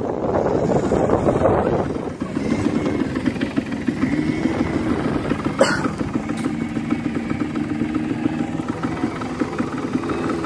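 Quad bike (ATV) engines running, a noisy stretch at first and then a steady engine drone, with one sharp click a little past halfway.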